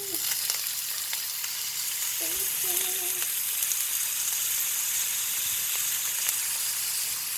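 Green onions, white onions and shrimp frying in hot oil in a very hot pan: a steady sizzle with small crackles and pops.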